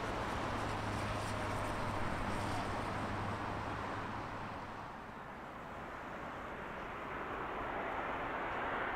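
Jet airliner engine roar on approach to land, its high end dying away after a few seconds before the noise swells again near the end.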